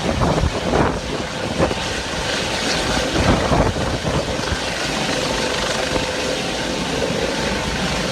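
Helicopter rotor and engine noise, a steady din, with strong wind gusting on the microphone through the first half.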